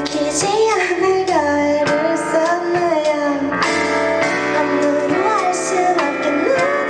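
Woman singing a slow ballad melody over acoustic guitar accompaniment.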